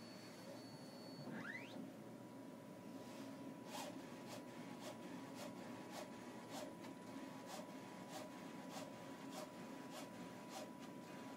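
Powder-and-binder 3D printer at work, faint: two short rising squeaks in the first two seconds, then a steady thin tone with regular clicking about twice a second.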